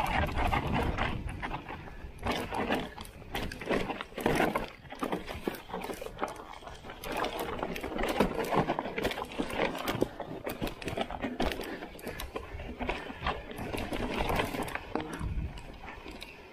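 Mountain bike descending a loose, rocky dirt trail: tyres crunching over stones, with a constant clatter of chain and frame and many sharp knocks as the wheels hit rocks.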